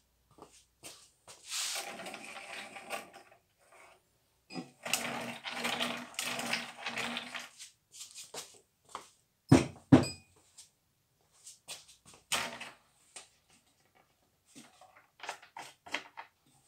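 Small wooden table on four casters being handled on a tile floor: two longer stretches of rolling and scraping, and a string of knocks and clatters, the loudest two in quick succession about ten seconds in.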